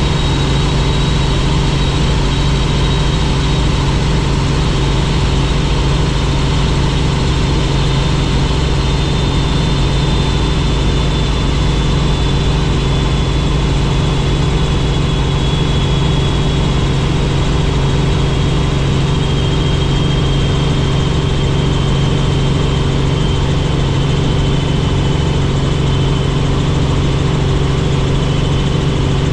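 Helicopter in flight: a steady low engine and rotor drone, with a thin high whine that slowly drifts a little lower in pitch.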